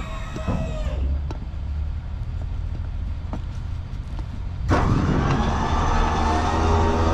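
Roll-off container truck's engine running at idle with a few light knocks. About two-thirds of the way through, a loud whining load comes on suddenly and holds, as the hoist hydraulics are engaged.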